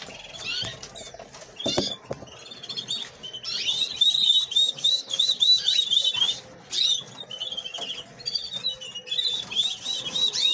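Canary nestlings begging while being hand-fed, a rapid run of short high chirps that comes and goes in spells. Two light knocks about two seconds in.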